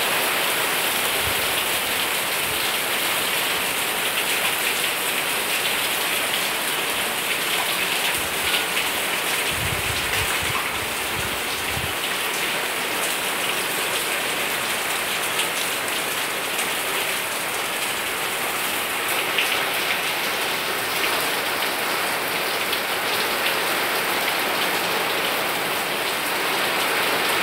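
Steady rain falling on garden foliage and roofs: an even hiss of many drops.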